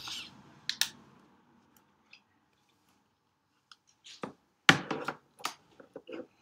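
Sharp clicks and knocks of small hard objects being handled: two just under a second in, then a quiet stretch, then a cluster of several from about four seconds on, the loudest about two-thirds of the way through.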